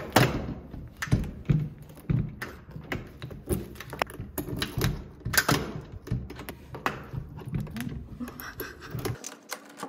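Metal key clicking, scraping and rattling in a door lock, with irregular knocks from the door hardware as the lock refuses to open.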